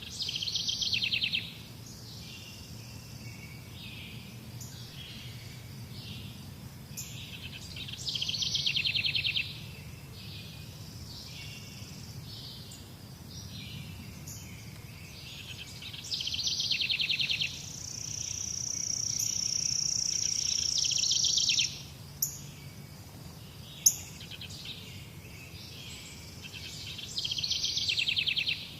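A songbird repeating a short, rapid trilled song of about a second and a half, four times, roughly every eight seconds. Midway a long, high, steady note grows louder for about three and a half seconds and cuts off, followed by two sharp clicks, over a steady low background hum.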